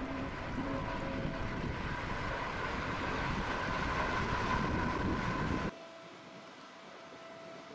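Tanker ship passing close alongside: a steady machinery drone with a low rumble and a few held hum tones, mixed with wind on the microphone, growing slightly louder. Near the end it cuts off suddenly to a much fainter version of the same hum.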